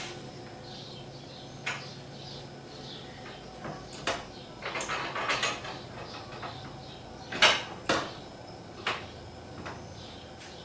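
Metal hardware of an aluminum running board and its brackets being fitted by hand: scattered clinks and scrapes, with two louder knocks about two-thirds of the way through.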